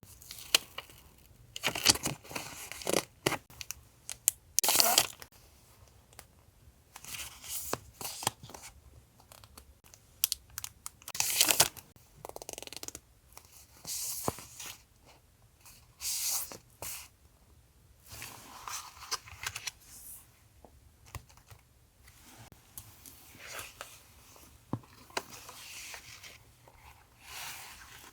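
Paper being handled and torn for a journal collage: irregular tearing, rustling and crinkling in short bursts with small taps, the loudest tears about 2, 5 and 11 seconds in.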